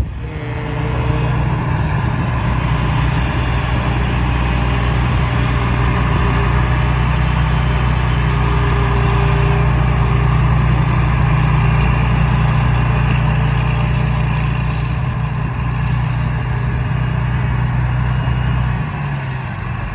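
Rice combine harvester's engine running steadily under load. It comes up in level about a second in and drops off shortly before the end.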